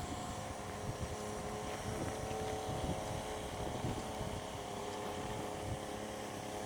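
Steady engine hum with several held tones, over a low rumble of wind on the microphone.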